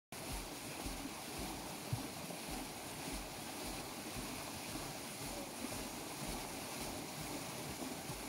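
Steady rush of river water churned by the paddles of a turning waterwheel, with low, irregular buffeting of wind on the microphone.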